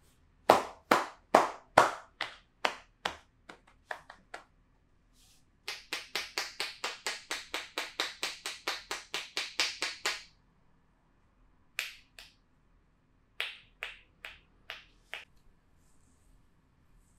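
Hands striking the body in massage percussion. A series of sharp slaps about two or three a second dies away, then a fast, even run of about six a second lasts some four seconds, and a few scattered slaps follow near the end.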